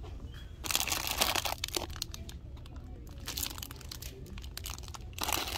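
Crinkly plastic bags of Twizzlers candy rustling as they are handled and pulled off a wire rack, in three bouts starting about a second in.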